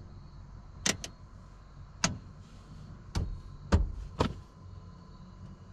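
About six short, sharp clicks at uneven intervals, over a faint low hum.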